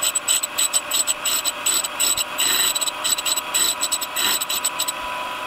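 Motor-driven grinding wheel running with a steady whine while a drill bit in a Deckel-style fixture is pushed against it, giving short, irregular, hissing grinding bursts. This is the primary facet of a four-facet drill point being ground.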